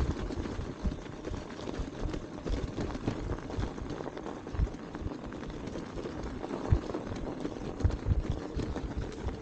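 Electric fat bike riding through snow: a steady crunching rumble from the tyres, broken by irregular low thumps.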